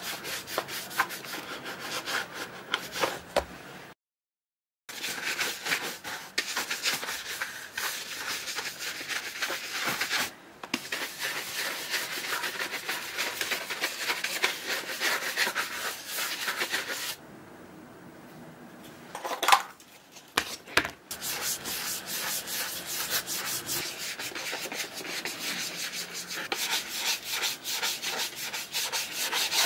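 A cloth, a bristle brush and a small dauber rubbing over a shell cordovan leather shoe in quick, close strokes. The rubbing drops out briefly about four seconds in and eases off past the middle, where there is one sharp knock.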